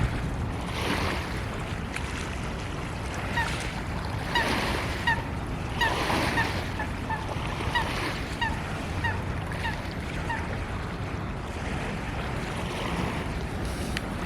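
Short, repeated bird calls, about two a second for several seconds, over steady wind and surf noise.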